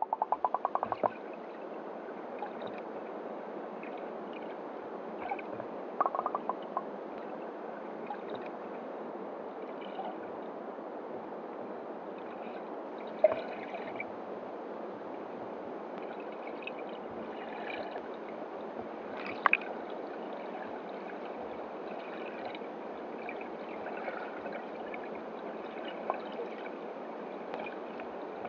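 Underwater river ambience added as a sound effect: steady flowing, gurgling water, with a quick run of clicks at the start, a short cluster of clicks a few seconds later and a couple of single clicks.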